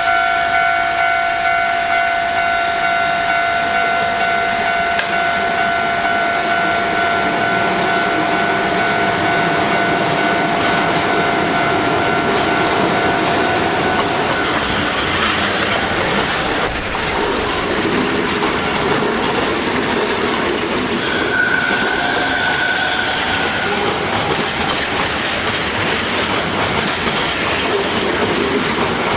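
Hankyu electric train running past on the line, wheels clattering over the rail joints. A steady high tone sounds for the first half, then stops as the train noise grows louder and rougher, with a brief higher tone about two-thirds of the way in.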